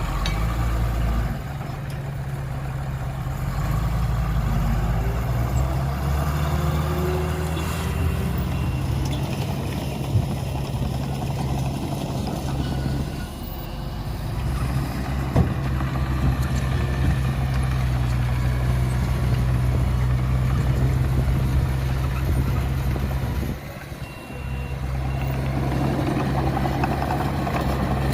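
Heavy diesel earthmoving machinery running steadily, with a couple of sharp knocks.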